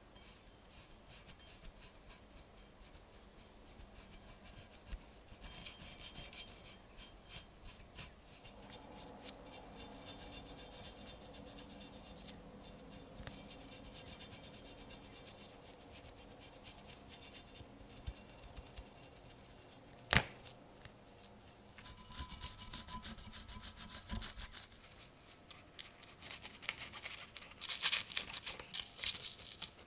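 A small bristle brush stroking and dabbing oil onto the bare steel of a Mosin–Nagant bayonet: soft, scratchy brushing with light taps, busiest near the end. One sharp click about two-thirds through.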